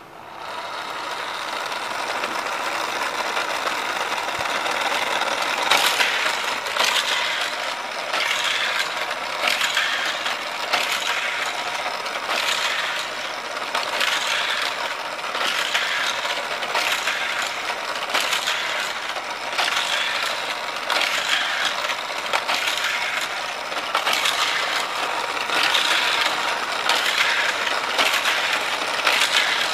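Hot Wheels Criss Cross Crash track set running: its motorized boosters whir steadily from the start as die-cast cars race around the plastic track. From about six seconds in come repeated sharp clacks, roughly one every second or so.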